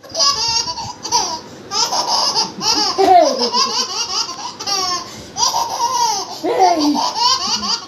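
A baby laughing in repeated high-pitched bursts with short breaths between them.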